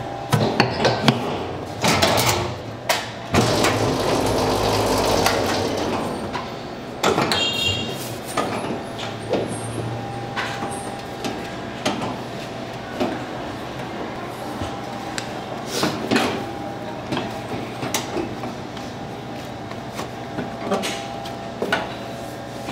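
Kitchen work clatter: irregular knocks and clicks of utensils and equipment being handled, over a steady low machine hum, with a stretch of hissing about three seconds in.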